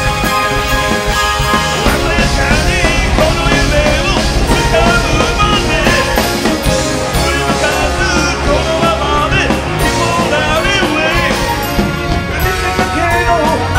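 Rock band playing live and loud, with drums, bass and electric guitars, and a wavering melody line over the backing.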